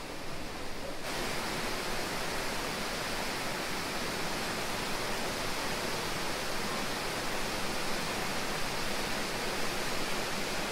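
Steady rush of falling water from a waterfall, stepping up louder and brighter about a second in and then holding even.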